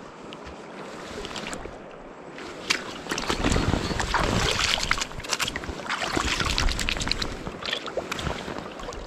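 Splashing, churning water, getting louder about three seconds in with many short crackling splashes, then easing near the end.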